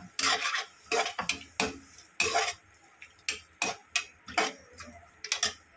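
Metal spatula scraping and clanking against a metal kadhai in about a dozen irregular strokes as onions and green chillies are stirred in a thickening sauce.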